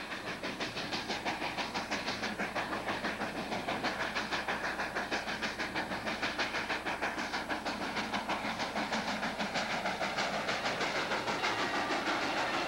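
Southern Pacific 786, a 2-8-2 Mikado steam locomotive, working steam as it approaches, its exhaust chuffing in a quick, even beat of about four to five a second. The beat grows slightly louder as the engine nears.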